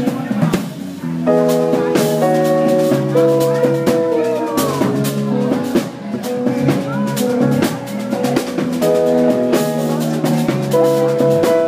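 Jazz trio playing live: electric keyboard chords, electric bass and a drum kit with cymbal and snare strikes throughout. The keyboard chords come in about a second in.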